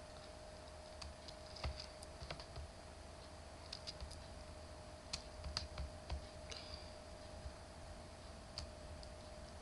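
Faint, irregular clicking of a computer mouse and keyboard being operated, about a dozen separate clicks, over a faint steady electrical hum.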